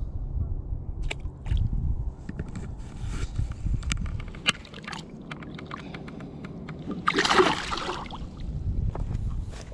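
A largemouth bass released into shallow, rocky lake water: handling clicks and water sloshing over a low rumble, then a loud splash about seven seconds in as the fish kicks away.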